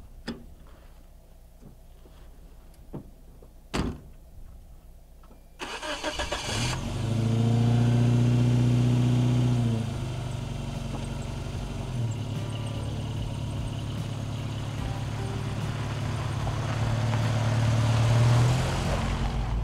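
A few clicks and a knock, then a starter cranks for about a second and the 1994 Geo Tracker's four-cylinder engine catches. It revs for a few seconds, then settles into a steady idle that rises a little near the end.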